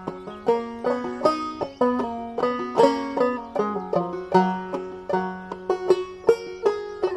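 Five-string banjo played clawhammer style in open G tuning (gDGBD, perhaps tuned lower), a steady run of plucked and brushed notes in an even rhythm.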